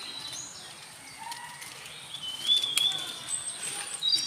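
Forest birds calling with short, high whistled notes that glide in pitch, the loudest a bit past halfway, over the rustle of people walking through undergrowth with a sharp crack or two underfoot.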